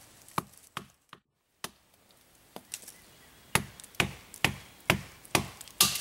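Dead-stick wooden club striking the back of a pocket knife blade to drive it into a small tree trunk, cutting out a felling wedge. A few scattered knocks come first, then a steady run of strikes about two a second.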